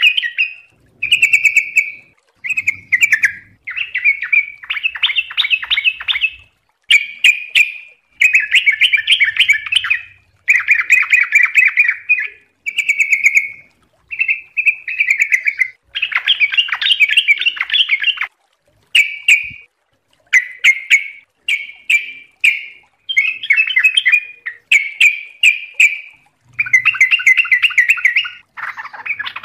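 Yellow-vented bulbul singing vigorously: a long run of short, bubbly, warbling phrases repeated one after another with brief pauses between them.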